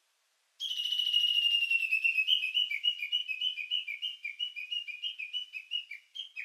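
A high, bird-like whistled trill of rapid chirps, hopping back and forth between two close pitches. It starts about half a second in and fades away toward the end.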